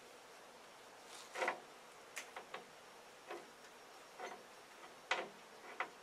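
A handful of short, faint clicks and ticks at irregular intervals, two of them louder, about a second and a half in and near the end.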